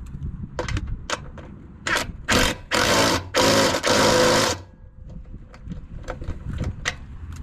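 A power tool driving a nut onto one of a travel trailer's body-to-frame bolts, run in four short bursts, the last and longest about a second and a half, with scattered sharp clicks before and after.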